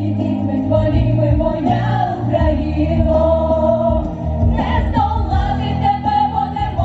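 Vocal group singing long held notes as a choir over instrumental accompaniment.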